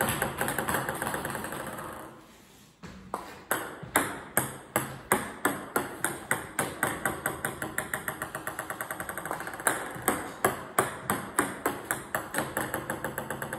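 Table tennis ball bouncing over and over on the table top. It comes in runs of sharp clicks that quicken and fade, with a short pause about two seconds in.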